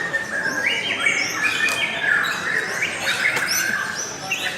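Lovebird singing a long run of rapid, chattering chirps and high stepped whistles.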